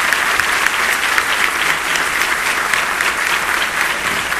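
Audience applauding steadily, a dense continuous patter of many hands clapping.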